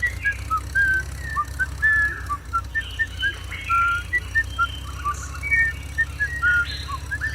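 Many short, high whistled chirps at varying pitches, several a second, over a steady low hum.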